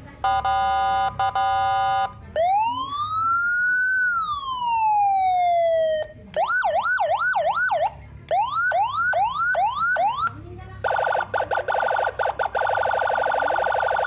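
Electronic motorcycle siren sounding through a horn speaker and stepping through the Senken tones of a 3-in-1 siren controller. It gives a steady horn-like blast first, then one long wail that rises and falls. Fast yelping sweeps follow at about four a second, and near the end a rapid warbling tone.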